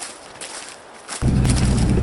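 A few footsteps on a woodland trail, then just over a second in an abrupt switch to a loud, steady low rumble of a running vehicle engine.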